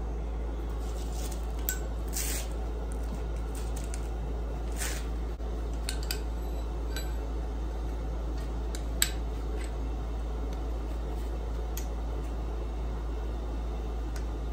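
Hot, freshly oil-dipped forged steel hook handled in tongs on an anvil and wiped with a rag while it smokes: scattered light metal clinks and a few short hisses, over a steady low hum.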